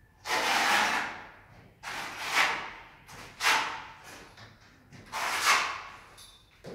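Notched steel trowel scraping cement tile adhesive across a wall: four rasping strokes, about a second and a half apart.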